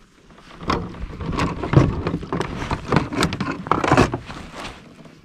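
Fishing gear being handled in a kayak: a busy run of knocks, clicks and rustles that builds about a second in and dies away near the end.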